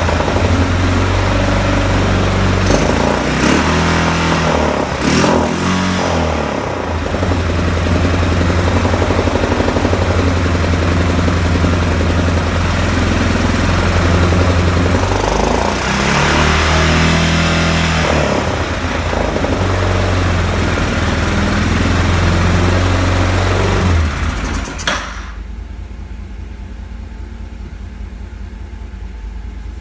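2006 Arctic Cat 500 ATV's single-cylinder four-stroke engine starting and running on a newly fitted carburetor, its revs rising and falling several times. It runs high and rich, with no air-box hose to the carb. About 25 seconds in, the sound drops suddenly to a quieter steady hum.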